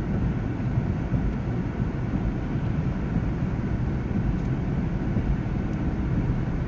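Steady low rumble inside a car's cabin in heavy rain: engine, tyre and rain noise blending together as the car creeps in traffic.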